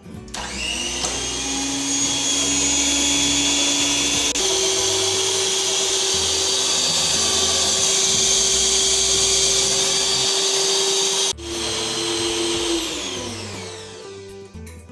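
Electric stand mixer's motor whirring as its beaters turn in the bowl. It spins up just after the start, steps up to a higher pitch about four seconds in, drops off abruptly about eleven seconds in, then winds down with a falling whine.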